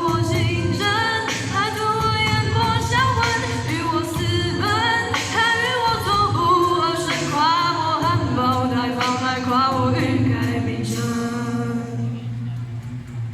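A singer performing a pop song, the voice in the lead over steady low accompaniment, with the singing dropping away briefly near the end.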